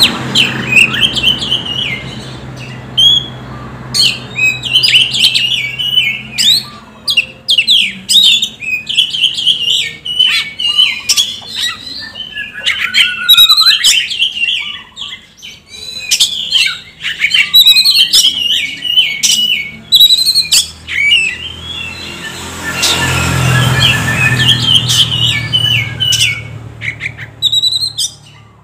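Oriental magpie-robin (kacer) singing a long, rapid and varied song of whistled phrases, trills and sharp chips, over a steady low hum.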